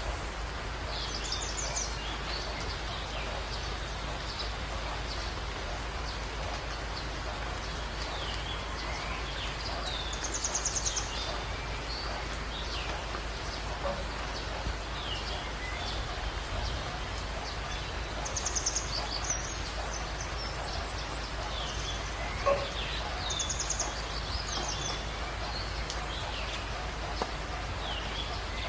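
Outdoor ambience of birds calling over a steady hiss: a short, rapid high trill four times, with scattered chirps between. A single sharp click about two-thirds of the way through.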